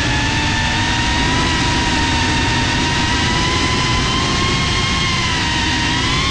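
FPV drone's brushless motors and propellers whining steadily, the pitch drifting gently up and down with the throttle over a rushing noise. The pitch rises near the end as the drone banks.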